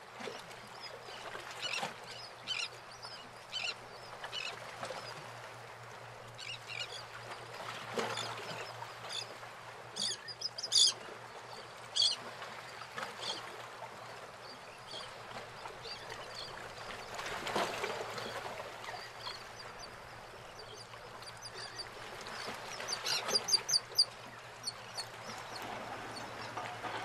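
Short bird calls scattered over a steady low hum, with a quick run of calls near the end.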